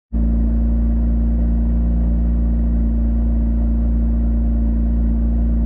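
Kia Stinger GT's twin-turbo V6 idling steadily, heard at the quad exhaust tips: an even, deep exhaust note with no revving.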